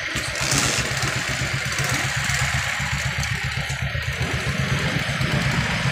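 An engine idling steadily, a fast even low throb with no revving.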